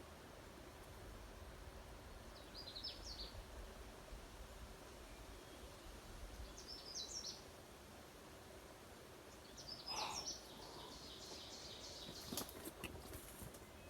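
A small songbird singing three short, high warbled phrases a few seconds apart; the last runs on into a string of quickly repeated notes. A low rumble of wind and a few faint clicks sit beneath.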